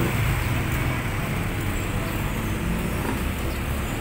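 Street traffic noise: a passing vehicle's low rumble eases off at the start, then a steady low traffic hum with faint voices.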